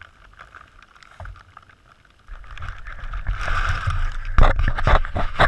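Leaves and grass rustling and scraping against the camera housing. Quiet at first, it grows louder a little over two seconds in, and a quick series of sharp knocks follows near the end.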